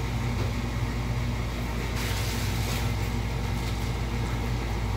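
Breaded chicken breast frying in oil in a nonstick skillet on an industrial gas stove: a soft sizzle over a steady low hum, the sizzle brightening briefly about two seconds in.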